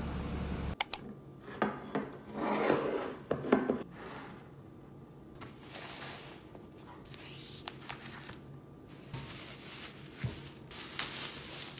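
Steady low rumble inside a city bus that cuts off sharply about a second in. Then plastic grocery bags and meat packaging rustle and crinkle, with light knocks as items are set down on a kitchen counter.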